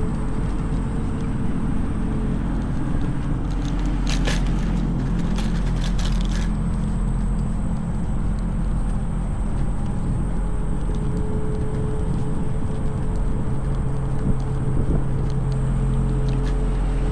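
Electric scooter riding over pavement: a steady low rumble of the wheels and wind on the microphone, with a brief rattle about four to six seconds in.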